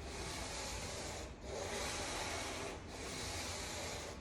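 120-grit sandpaper rubbed by hand along the chamfered edge of a walnut and epoxy table, in three long, even strokes of about a second and a half each with short breaks between them. This is the 120-grit stage of smoothing the routed edge.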